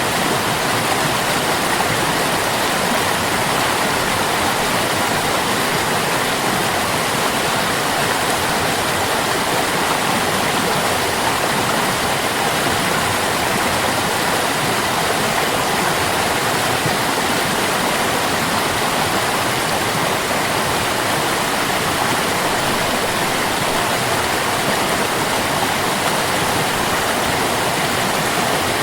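Stream water rushing, a steady, unbroken sound with no pauses or changes.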